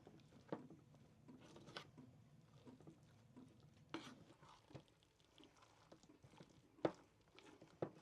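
Near silence with a few scattered soft clicks and taps, the small handling sounds of food preparation; one sharper tap comes about seven seconds in.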